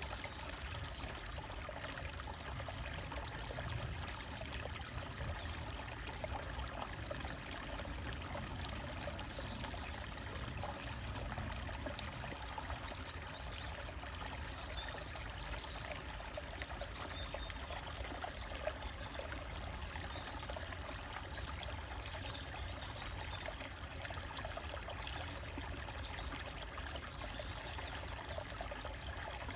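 Shallow stream trickling over rocks in a steady rush of water, with a few faint high bird chirps in the middle.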